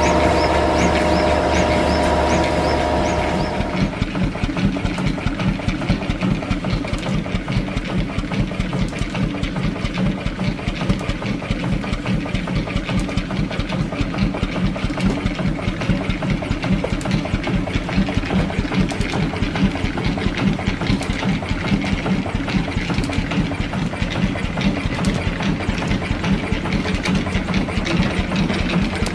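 Small Morris vertical steam engine running on compressed air, with a fast, even beat of exhaust puffs and knocks from its crank and valve gear. A steady hum with a held whine, louder than the engine, is there at first and cuts off about four seconds in.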